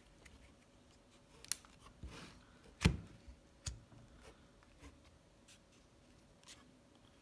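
Scattered light clicks and taps of fingers handling metal nut-setter sockets in their plastic holder inside a hard bit-set case, with a sharper knock about three seconds in.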